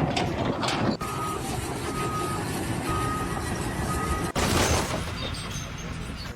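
A vehicle's reversing alarm beeping about once a second, four beeps in all, over steady engine and machinery noise. It cuts in about a second in and stops abruptly a little past the middle, giving way to other rumbling noise.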